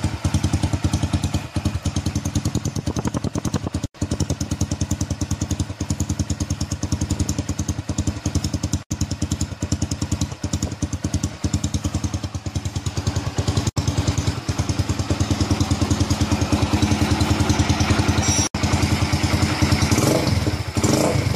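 Kawasaki W175's single-cylinder engine idling steadily through an aftermarket classic-style muffler, an even, regular pulsing of the exhaust.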